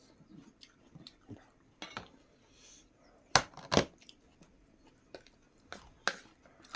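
Eating sounds close to the microphone: scattered sharp crunches and clicks of food being chewed and handled on plates. The two loudest come close together a little past halfway.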